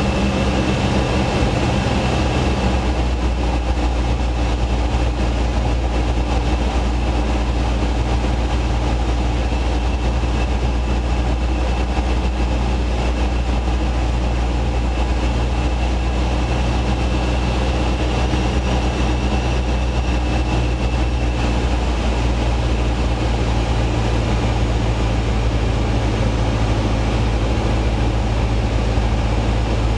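Robin HR200 light aircraft's piston engine and propeller droning steadily, heard inside the cabin. The engine note drops about three seconds in, with power eased back as the aircraft slows and descends.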